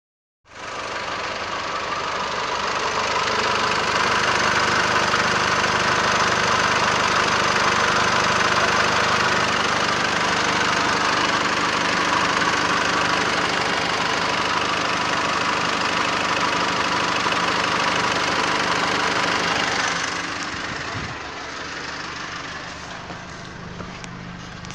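Nissan Navara D40's 2.5-litre four-cylinder turbo-diesel idling steadily, heard close to the open engine bay. About twenty seconds in it becomes quieter as the recording moves into the cab.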